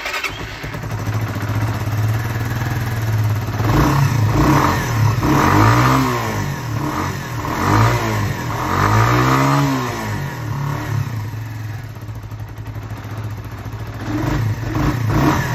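Suzuki DR125SM's single-cylinder four-stroke engine on its original silencer, ticking over, then revved in about four quick throttle blips that rise and fall. It settles back to idle and revs once more near the end.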